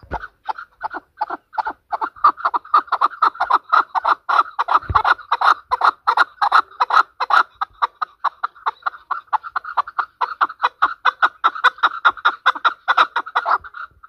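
Chukar partridge calling: a long, rapid run of short clucking chuk notes, about five a second, stopping shortly before the end.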